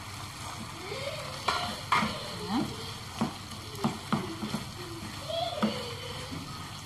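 Wooden spatula stirring chicken pieces in a sizzling frying pan: a steady sizzle, with irregular knocks and scrapes of the spatula against the pan from about a second and a half in.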